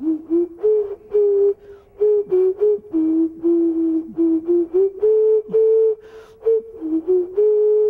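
Handmade clay vessel whistle played as a short tune: a low, pure tone stepping up and down between a few notes as fingers open and close its holes, mostly in short separate notes with a few held about half a second.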